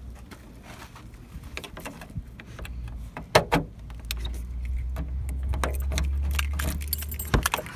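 A bunch of car keys jangling on their ring as a key is worked into a Jeep Grand Cherokee's door lock, with several sharp clicks, the strongest a little over three seconds in and near the end. A low rumble runs through the middle.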